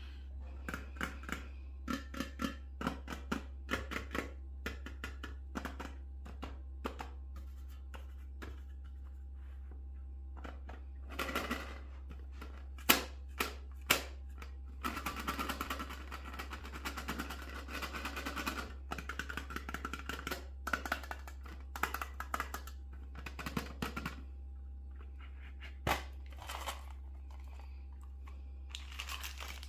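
M&M's candies dropping and rattling into a metal bowl: scattered clicks for the first several seconds, a few sharp single ticks near the middle, then a long dense run of pattering drops with the bowl ringing faintly.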